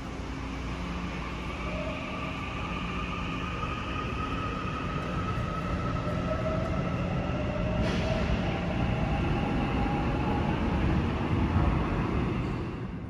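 Seoul Subway Line 8 electric train pulling away and accelerating: its traction-motor whine climbs slowly in pitch over the rumble of the wheels, growing louder. There is a single sharp clank about eight seconds in.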